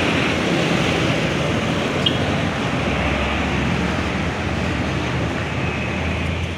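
Steady rush of road traffic: a tour bus driving past, its engine hum and tyre noise running without a horn.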